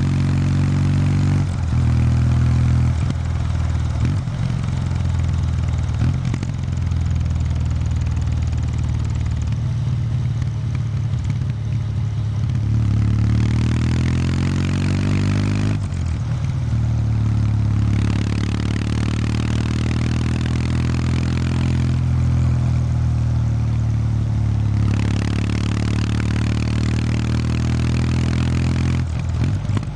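Exhaust note of a 2019 Kawasaki W800 Street's air-cooled parallel-twin engine through its stock exhaust, ridden at low speed with small throttle changes. Partway through, the engine speed climbs steadily for a few seconds and then drops off sharply, and it dips again briefly near the end.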